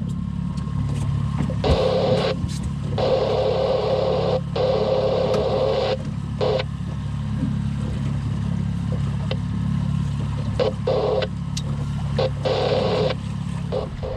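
Boat motor running steadily in a low hum. Over it come several bursts of a higher, rushing sound that switch on and off abruptly.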